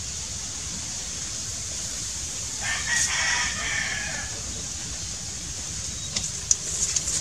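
A rooster crows once, about three seconds in, a pitched call lasting under two seconds, over a steady high hiss. A few light clicks follow near the end.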